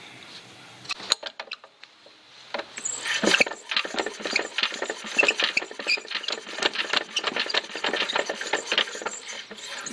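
Chaise Vega single-cylinder stationary engine being turned over by hand, its valve gear and ignition parts giving a fast, uneven run of clicks and rattles. It turns freely without compression because a valve is stuck open. There is a single sharp click about a second in.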